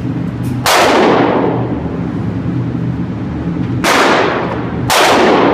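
Three gunshots in an indoor shooting range, the first about a second in and two more close together near the end. Each is a sharp report followed by a long reverberant tail, over a steady low hum.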